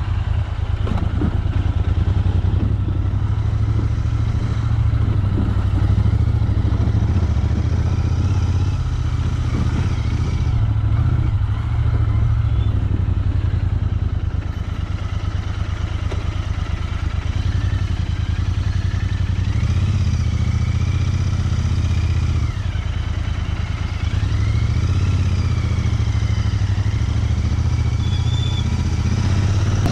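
Royal Enfield Interceptor 650's parallel-twin engine running steadily under way, its revs wavering a little in the second half.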